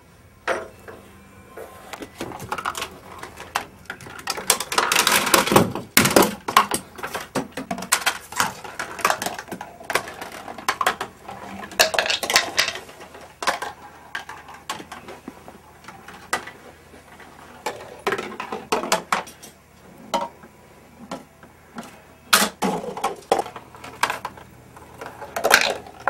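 A homemade chain-reaction contraption running: balls and marbles rolling down taped cardboard and toilet-paper-tube ramps, with cups, CDs and cans knocking and falling. It gives a long string of small clicks, knocks and rattles, with several louder clattering bursts.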